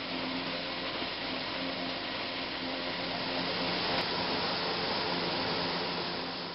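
Pull-type forage harvester fitted with a Dion F64 three-row rotary corn head, drawn by a tractor, running while cutting and chopping standing corn: a steady, noisy mechanical drone with a faint low hum. There is a brief click about four seconds in.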